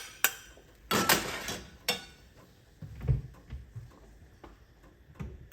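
Kitchen utensil working a frying pan of scrambled eggs: a short scrape about a second in, among scattered light clicks and taps and a dull knock around three seconds.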